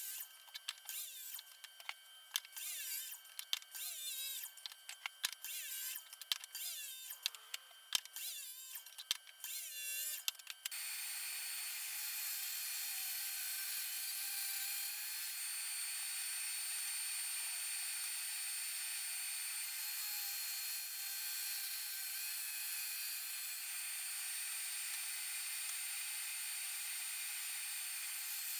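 About ten seconds of short, choppy bursts of workshop tool noise with sharp clicks. After that comes a steady, even whine and hiss: a DeWalt track saw cutting a long board along its guide rail, with dust extraction running.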